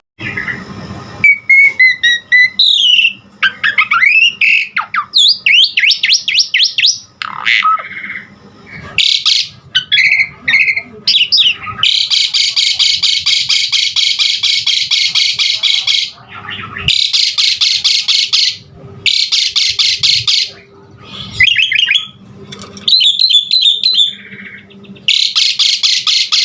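Javan pied starling (jalak suren) singing a varied, loud song: whistled rising and falling notes and fast buzzy trills, broken by several long spells of harsh, dense chattering, the longest about twelve seconds in.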